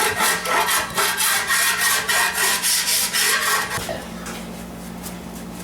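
Hand file rasping over lead body filler on a motorcycle gas tank in quick, even strokes, about three a second, stopping about two-thirds of the way through; a steady low hum continues underneath.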